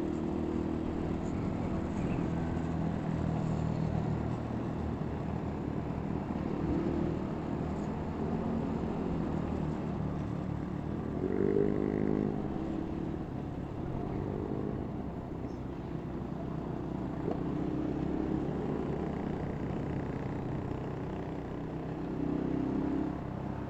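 Steady engine and road noise of a vehicle being driven, heard from aboard. About halfway through, a louder pitched sound swells briefly and fades.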